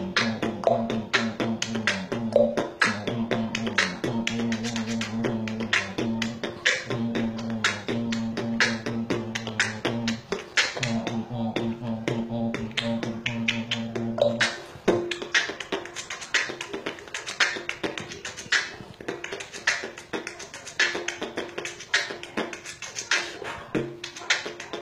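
Human beatboxing: a fast, steady rhythm of vocal kick, snare and hi-hat clicks and hisses made with the mouth. For the first fifteen seconds or so it runs over a low sustained droning bass tone with short breaks. After that only the percussive mouth sounds continue.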